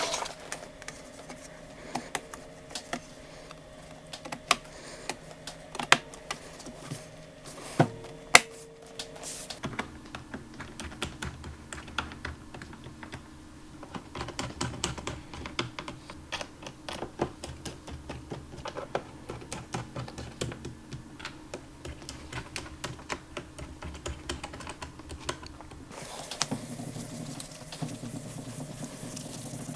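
Light clicks and taps on a MacBook laptop, a few sharper isolated knocks at first, then a dense run of quick keyboard-like clicks from about ten seconds in, over a faint steady hum.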